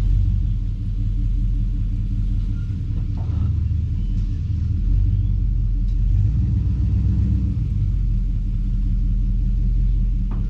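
A large engine of farm machinery running steadily at constant speed, its sound low-pitched and even.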